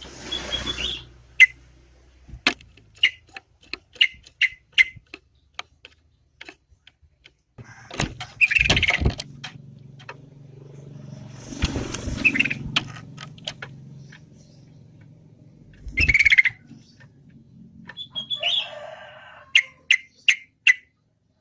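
Yellow-vented bulbul (trucukan) calling: many short sharp chips between several louder bursts of call. A low steady rumble runs underneath through the middle.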